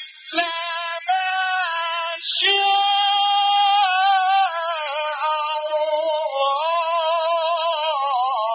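A male Quran reciter chanting in the melodic Egyptian mujawwad style. He holds long, high notes with wavering ornaments, and the phrases break briefly about a second and two seconds in.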